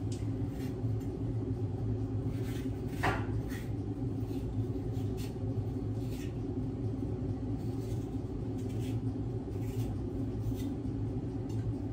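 Kitchen knife slicing a green bell pepper on a wooden cutting board: soft, irregular cuts about every half second to a second, one a little sharper about three seconds in, over a steady low hum.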